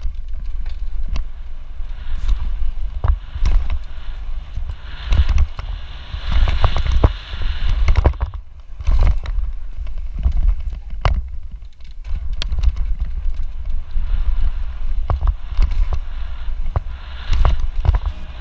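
Ride-along sound of a bike going fast down a bumpy dirt trail: steady wind rumble on the microphone, with frequent knocks and rattles from the bike over bumps. A rushing hiss of the tyres on dirt swells about five seconds in and again near the end.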